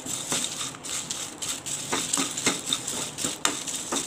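Whole spices (cinnamon sticks, bay leaves, coriander seeds and peppercorns) being stirred with a spatula in a dry, oil-free nonstick kadai: irregular scraping and rattling of seeds and bark against the pan as they roast.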